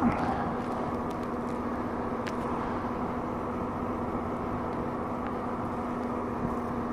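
Steady engine and road noise inside a moving car's cabin, with a constant low hum.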